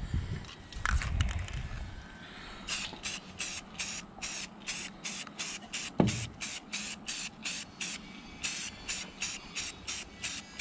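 Aerosol spray-paint can hissing in short repeated bursts, about three a second, with a brief pause near the end. A single dull thump about six seconds in.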